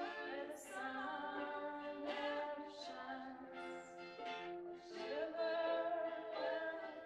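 A song performed live: a singing voice with acoustic guitar accompaniment, the voice holding a long, louder note in the last couple of seconds.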